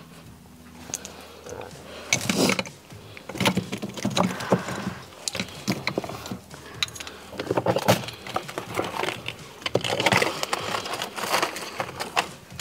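Clicks, taps and rustling of makeup products and containers being handled: plastic caps and cases clicking, with bursts of rustling.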